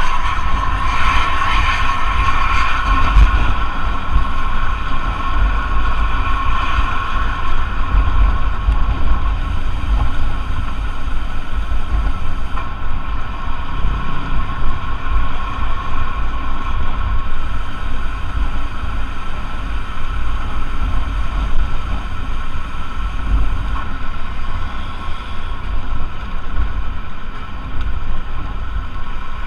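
Haryanto HR 016 intercity bus travelling at speed on the highway: steady engine and road noise with a rumbling low end and wind buffeting the microphone. A high, steady whine is strongest at first and fades away over roughly the first ten seconds.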